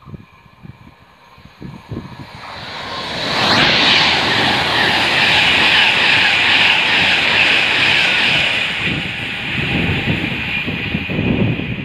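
Class 390 Pendolino electric express train passing through the platform at speed. Its wheel and air noise rises sharply about three seconds in, stays loud for several seconds, then slowly fades.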